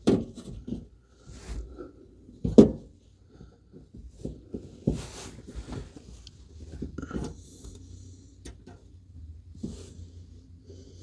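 Scattered clicks, scrapes and knocks of needle-nose pliers working plastic push-pin retainers loose from a liftgate panel, with one sharp knock about two and a half seconds in.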